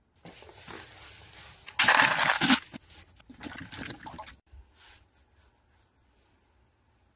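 Clear plastic bag rustling and crinkling as a hand handles it. The sound is loudest for about a second in the middle, then fades out a little past halfway.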